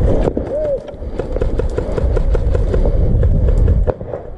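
Movement noise on a body-worn camera: footsteps and brushing through grass and bushes, with a steady low rumble of wind and handling on the microphone and many light clicks. A short hum rises and falls about half a second in.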